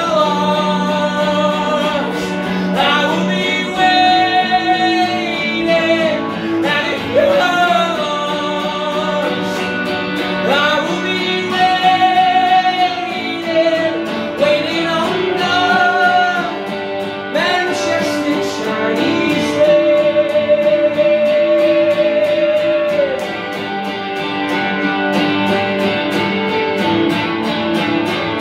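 Live solo song: a man sings long held notes over his own strummed electric guitar.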